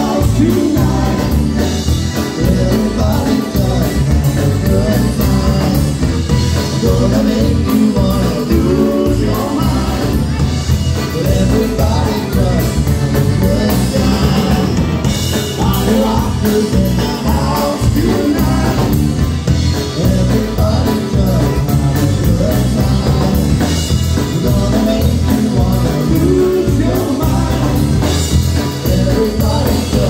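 A live polka band playing an upbeat polka arrangement of club pop songs, with a lead vocal over accordions, bass guitar, brass and a drum kit keeping a steady beat.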